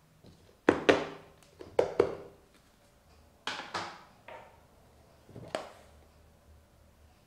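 A series of sharp knocks and clacks, mostly in close pairs about a quarter-second apart, some ringing briefly.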